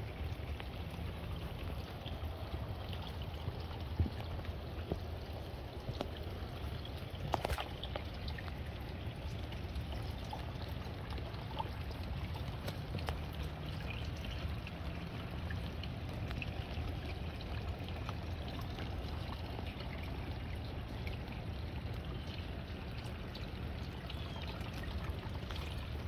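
Rain falling on a small garden pond, with a steady stream of water pouring and splashing into the water, and scattered sharper drips throughout.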